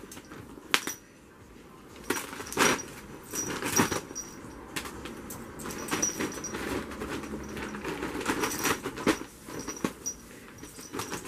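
Maine Coon cat pouncing and scrabbling on a fabric bed cover while playing with a teaser wand: irregular rustling with sudden knocks and thumps, the sharpest about a second in.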